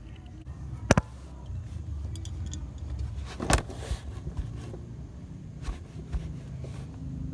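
Low steady rumble with scattered small clicks and clinks of handling, and one sharper knock about three and a half seconds in.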